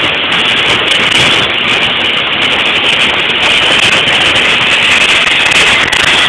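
Oxy-fuel cutting torch burning through steel plate: a loud, steady hiss of the gas jet as it blows molten metal and sparks out of the cut.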